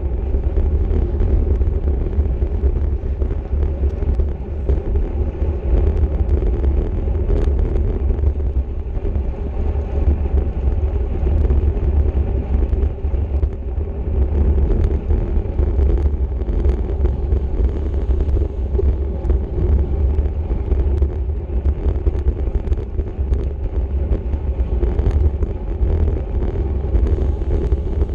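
Wind rushing over the microphone of a camera on a racing bicycle at speed: a steady low rumble, with scattered faint clicks.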